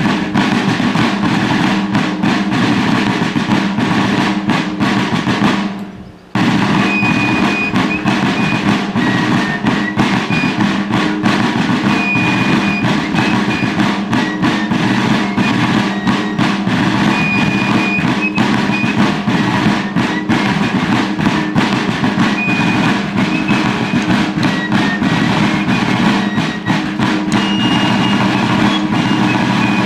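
Fife and drum corps playing a military tune: a fife carries the melody over four rope-tension field drums beating rapid rolls and strokes. The music breaks off for a moment about six seconds in, then goes on.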